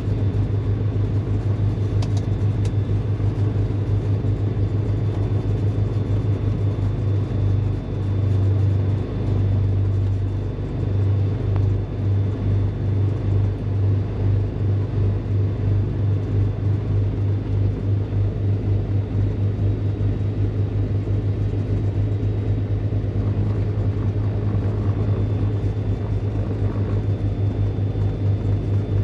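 Beechcraft G58 Baron's twin six-cylinder piston engines running at taxi power, heard from inside the cockpit as a steady low drone that settles into a slow, regular throb.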